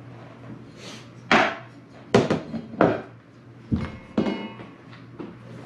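About six sharp knocks and clunks, spaced irregularly, as the Starlink kit's parts and cardboard packaging are handled and set down.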